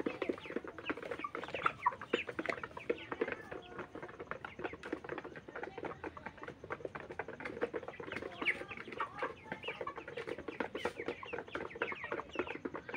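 A flock of broiler chickens clucking and peeping, with many short calls overlapping one another throughout.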